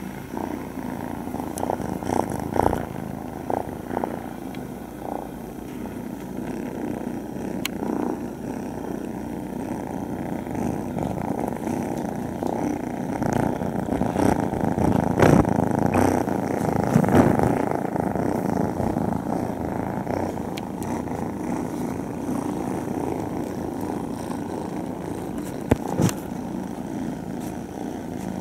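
Kittens purring close to the microphone: a steady, continuous purr that swells louder around the middle, with a few brief clicks and knocks as they brush against it.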